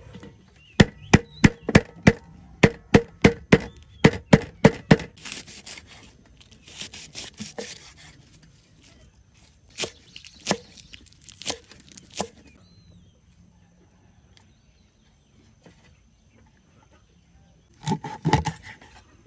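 Stone pestle pounding garlic and chilies on a wooden chopping board, about three sharp strikes a second for the first five seconds. About ten seconds in, a knife chops a few times on the board.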